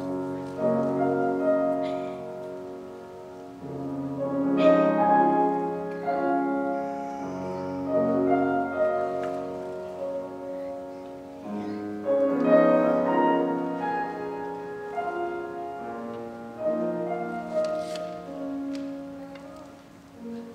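Live solo instrumental music: a slow melody of ringing, decaying notes and chords.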